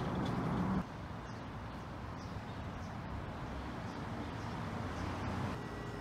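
Steady outdoor background noise, a low even hum with no distinct events; the sound drops abruptly a little under a second in, then carries on quieter.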